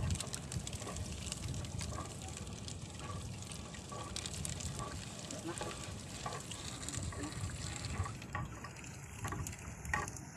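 Wet gill net being hauled hand over hand over the gunwale of a wooden outrigger canoe: water dripping and splashing off the net, with many small crackling clicks of mesh and floats against the hull.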